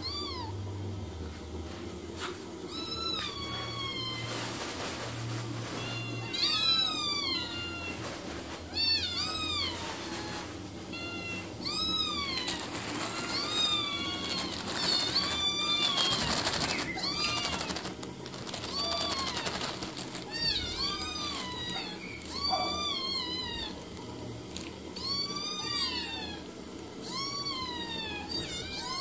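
Several cats and kittens meowing over and over, short high calls that rise and then fall, about one a second and sometimes overlapping. They sit looking up around an empty food plate, meowing to be fed.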